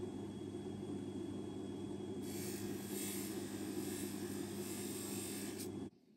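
Bench polishing motor running with a steady hum, its cloth mop spinning, while a watch case is pressed against the mop for a hissing rub that grows stronger from about two seconds in. The sound cuts off suddenly near the end.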